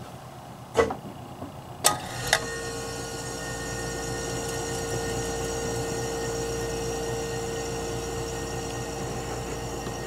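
Reciprocating compressor of an Excellence ERT-235 R12 mini refrigerator starting up: two sharp clicks about two seconds in as it is switched on, then a steady hum with a clear tone as the compressor runs.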